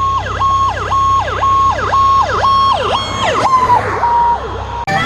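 Emergency vehicle's electronic siren sounding a fast repeating cycle: a held high tone that dips and comes back up about twice a second, over a low steady rumble. The cycling stops about three and a half seconds in, leaving a fading tone, and music cuts in abruptly at the very end.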